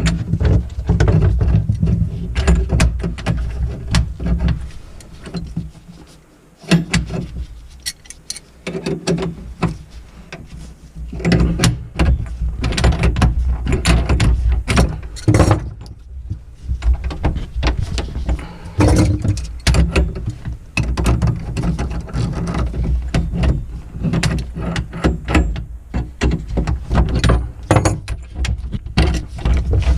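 Plumbing work at close range: hand tools and metal fittings being handled, giving many irregular clicks and knocks over a steady low rumble.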